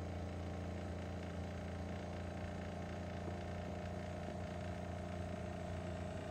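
Sous vide immersion circulator running in a pot of water: a steady, even motor hum from its circulating pump.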